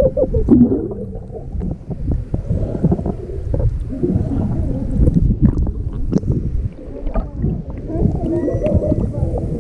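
Muffled churning and bubbling of water heard underwater, a dense low rumble with brief gurgles. Near the end it gives way to splashing water at the surface.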